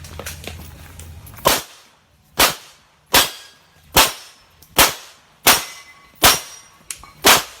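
Glock 9mm pistol firing a string of about eight sharp shots at a steady pace, roughly one every three-quarters of a second, during a timed practical shooting course of fire.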